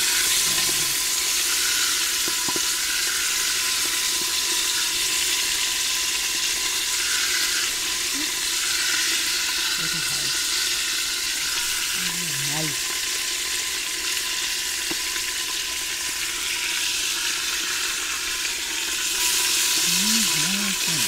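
Beef pieces searing in hot fat in an aluminium Afghan kazan pressure cooker: a steady sizzle, with the meat turned now and then with tongs.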